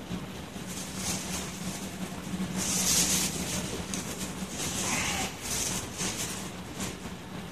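Plastic spreader scraping and smearing epoxy across solar panel glass in repeated strokes, a soft swishing hiss, over a steady low hum.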